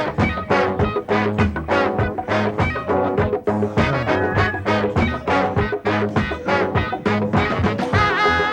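Upbeat swing-style music with a brass section and a steady beat.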